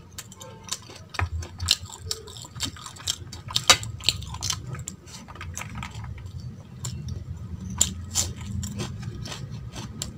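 Close-miked eating sounds of someone chewing rice and mutton curry eaten by hand: wet chewing with many sharp clicks and smacks at irregular intervals.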